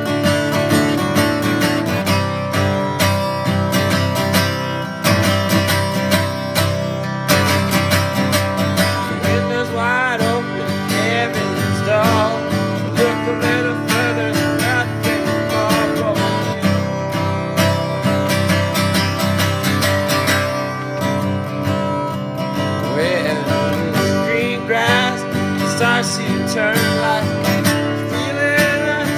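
Music led by a strummed acoustic guitar, with a wavering melody line that slides in pitch about ten seconds in and again in the last few seconds.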